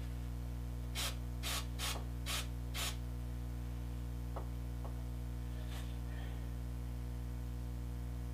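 CA glue accelerator (kicker) sprayed in five short hissing bursts about half a second apart, followed by a couple of faint clicks, over a steady low electrical hum.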